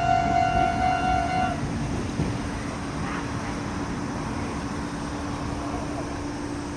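Level-crossing electronic warning bell ringing, cutting off about one and a half seconds in, with the low rumble of a passing train underneath. After the bell stops, the rumble and a steady low hum continue.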